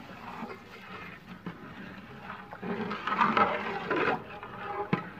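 Long metal ladle stirring a thin, syrupy halwa mixture in a large aluminium pot, the liquid sloshing, loudest about three seconds in. A single sharp knock near the end.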